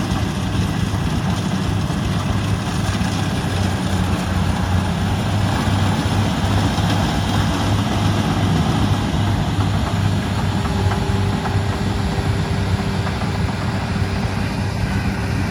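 Combine harvester's engine running steadily: a constant low engine note with machinery noise over it.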